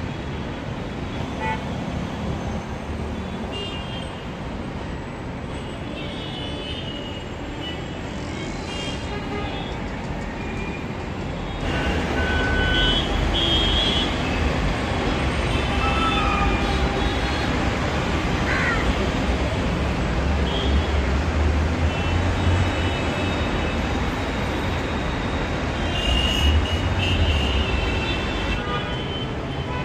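Street traffic noise coming through an open window: a steady rumble of passing engines with occasional short vehicle horn toots, getting louder about a third of the way in.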